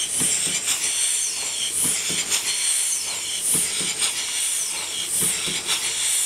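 Scale model of a Holly vertical pumping engine running, with a steady hiss and a rhythmic beat: a puff and a double knock roughly every 1.7 seconds.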